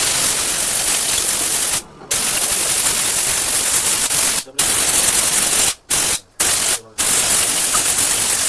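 A pressurised spray hissing loudly and steadily as the fuel pump motor is sprayed clean, broken by about five short pauses between blasts (near two seconds in and several times around five to seven seconds in).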